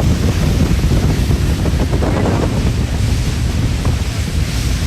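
Wind buffeting the microphone and rushing water aboard a moving speedboat, a loud, steady rumble.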